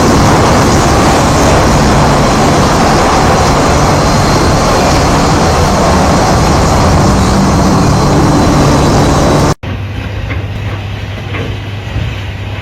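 Loud, steady heavy-machinery noise with a low engine hum. About nine and a half seconds in, it cuts off abruptly to a quieter engine running with a steady low hum and occasional clicks.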